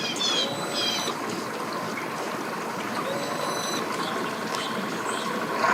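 Steady background noise of water and distant motors at a boat ramp, with a few short high chirps in the first second.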